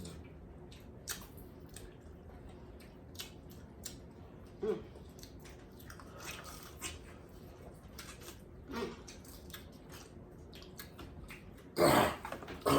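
A person eating seafood, chewing close to the microphone amid small clicks and crackles of food and shell, with a couple of short hums. A loud burst of noise comes near the end.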